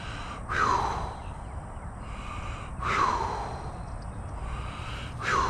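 A man's heavy breathing close to the microphone: three sharp breaths, one about every two and a half seconds, each dropping in pitch as it fades.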